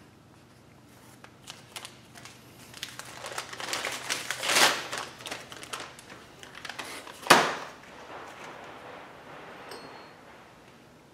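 Hands handling something crinkly, with rustling and scattered light clicks that build to a loud rustle about four and a half seconds in, then one sharp knock a little after seven seconds.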